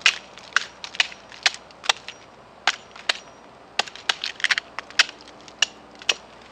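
Dead, sunburned avocado bark cracking and snapping as it is pried and broken off the trunk: a string of sharp, irregular cracks, some in quick clusters.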